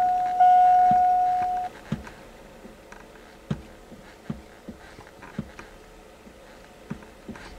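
Dashboard warning chime of a 2002 Chevy Silverado giving a repeating ding, each one a steady tone that fades before the next. It cuts off under two seconds in, followed by a few light clicks and taps in the quiet cab.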